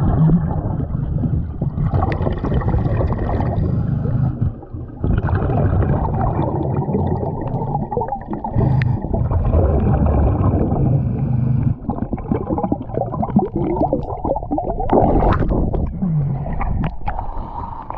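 A diver breathing underwater from a Nomad surface-supplied regulator: exhaled bubbles gurgle and rush past the microphone in long bursts, broken by a few brief pauses between breaths.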